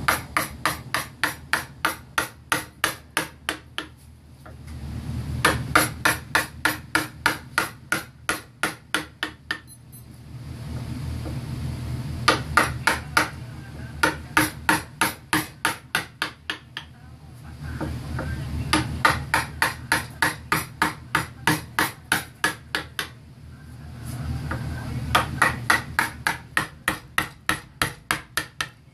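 A mallet tapping a woodcarving gouge through wood in quick, even runs of sharp knocks, about four or five a second, with short pauses between runs as the carver moves along the moulding.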